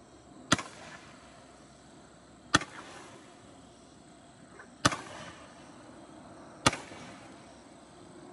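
Consumer roman candle firing four shots, about two seconds apart. Each is a sharp pop with a short echoing tail as a star is launched.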